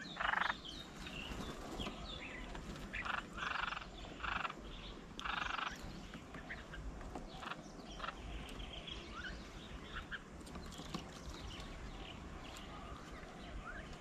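Small birds calling around a feeding table: many short chirps and calls throughout, with four louder short harsh bursts in the first six seconds.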